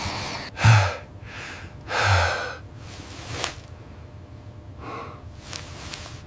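A series of breathy huffs and gasps, about six in all. The loudest two come in the first two seconds.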